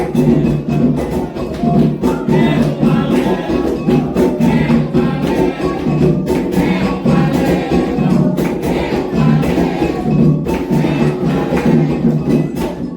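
Candomblé ritual music: atabaque hand drums and other percussion playing a steady, dense rhythm under group singing of a song for the orixás.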